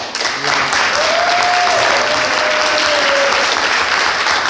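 Audience applauding, a dense patter of many hands clapping. A single held note sounds above it for about two seconds, starting about a second in.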